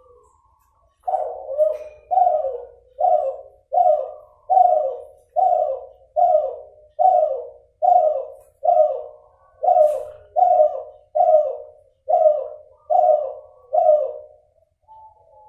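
Spotted dove (derkuku), a Kelantan-bred cross, cooing in a steady run of about sixteen evenly spaced notes, a little more than one a second, stopping shortly before the end. The breeder judges its voice type as still nasal. A single sharp click sounds about two-thirds of the way through.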